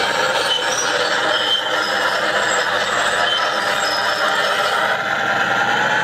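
Self-made radio-controlled Liebherr 944 excavator model working, its drive and mechanism making a steady whirring, rattling mechanical noise.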